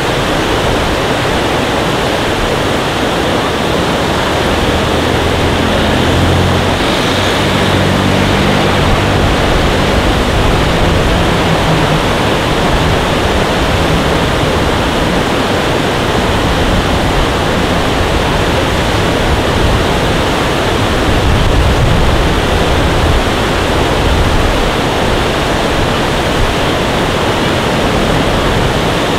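Steady loud rushing noise, with a low engine hum rising out of it for several seconds in the first part.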